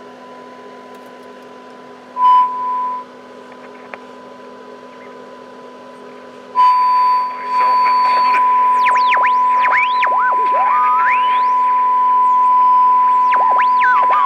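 Transistor radio's speaker sounding a steady 1 kHz test tone from the signal generator over a low hum. The tone is faint at first and briefly loud about two seconds in. From about six and a half seconds it is loud, with whistles gliding up and down across it as the tuning shifts: heterodyne squeals while the set is swamped by the wrongly set generator signal.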